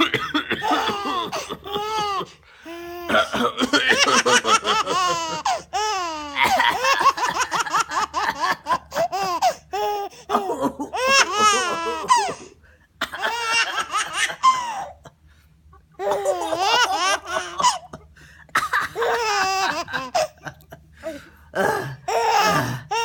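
Baby laughing hard in repeated high-pitched bouts with short pauses, set off by a man's coughing, which comes in between the laughs.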